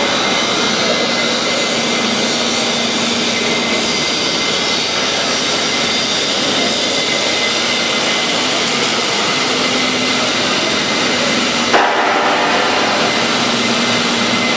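Loud, steady industrial machinery noise: an even rushing hiss with a faint, steady high whine, and one sharp knock about twelve seconds in.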